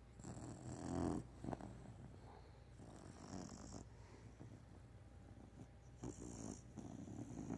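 Snoring: slow, rough breaths about every three seconds, the first the loudest.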